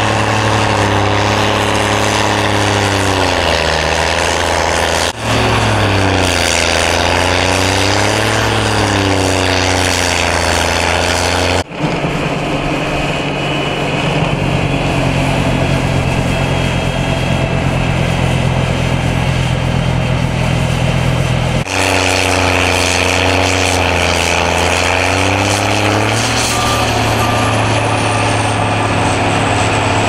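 Diesel engine of a CAT wheel loader running a front-mounted snowblower, its pitch rising and falling repeatedly as it works the blower through a snowbank. For a stretch in the middle, a different machine, a small tractor with a front snowblower, runs at a steadier pitch.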